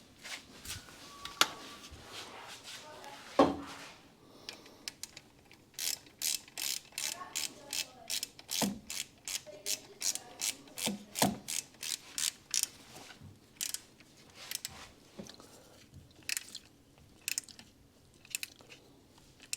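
Hand socket ratchet wrench clicking as fasteners are turned, a steady run of about three clicks a second for several seconds, with two sharp knocks of tools on metal before it.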